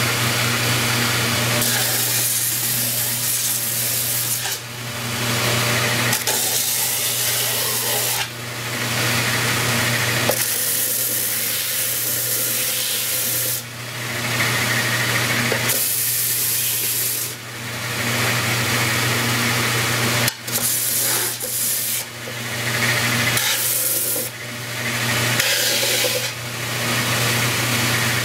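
Vertical belt sander running with a steady motor hum while a wooden radio cabinet panel is pressed against the abrasive belt. The sanding noise comes in repeated passes of a few seconds each, dipping briefly between them.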